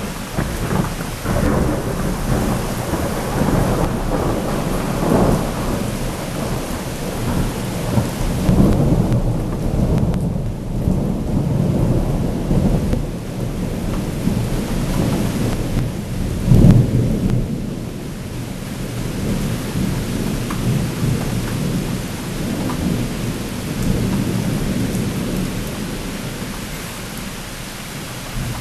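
Thunder rolling in long, continuous rumbles that swell and fade several times, loudest about seventeen seconds in, over the steady hiss of rain.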